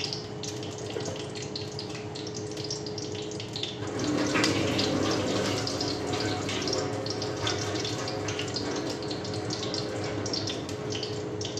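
Ghee melting and heating in an iron kadhai, sizzling with a steady fine crackle that gets louder about four seconds in, over a faint steady hum.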